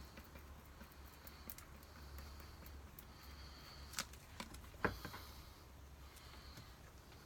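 Quiet steady low hum with a few light clicks and taps, the loudest about five seconds in, from small objects being handled.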